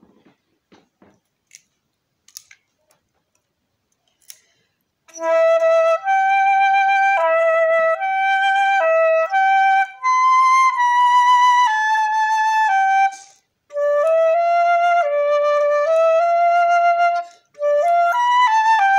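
A few faint clicks in near silence, then about five seconds in a concert flute starts playing a slow, gentle melody of held notes. The melody comes in phrases, with two short breaks between them.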